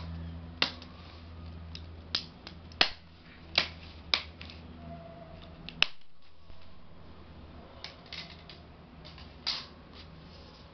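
Sharp clicks and taps at irregular intervals, about eight of them, from laptop parts and small tools being handled during a laptop repair, over a low steady hum.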